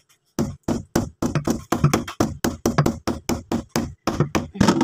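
Hammer with a steel shaft and blue rubber grip striking in a rapid run of repeated blows, about four to five a second.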